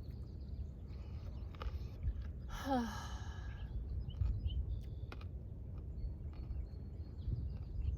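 A woman's breathy sigh about two and a half seconds in, the voice falling in pitch as it trails off, over a steady low rumble and a few small clicks.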